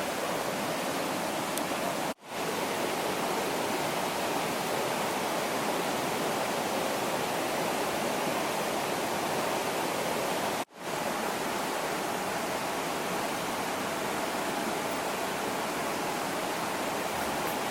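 A steady, even rushing noise, cut off abruptly for a split second twice: about two seconds in and near the middle.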